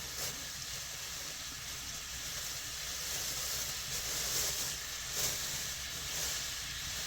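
A steady hiss with no pitch, swelling briefly a few times.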